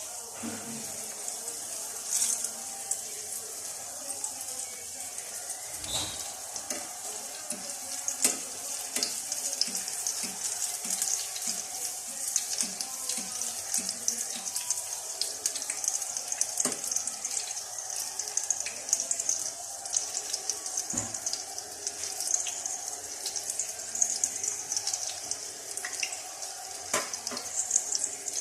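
Pieces of dove frying in hot oil: a steady high sizzle with many small crackles and pops, and an occasional knock of the pan.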